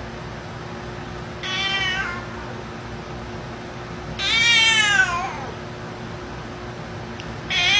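Black-and-white cat meowing three times: a short meow about a second and a half in, a longer meow falling in pitch about four seconds in, and another falling meow starting near the end.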